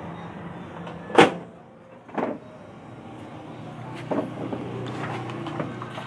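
Microwave oven door shut with a sharp bang about a second in, then a second, softer knock a second later and a few light clicks of handling, over a steady low hum.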